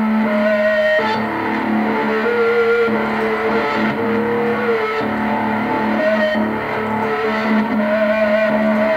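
Instrumental passage of a song led by electric guitar: long held notes that waver and bend slightly, over a steady low sustained note.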